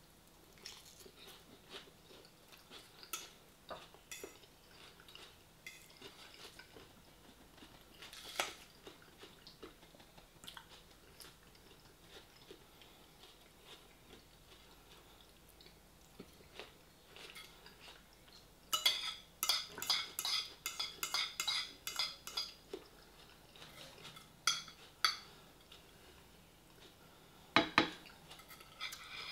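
A metal fork clinking and scraping against a dish while someone eats, with quieter chewing in between. About two-thirds of the way through comes a quick run of clinks, and a few sharp ones come near the end.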